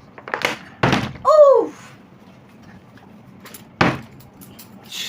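Plastic bottle flipped and thudding down on a hard surface: a couple of knocks in the first second and one sharp thud later, with a short exclamation between them.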